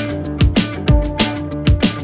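Background music with a steady drum beat and pitched instrumental notes.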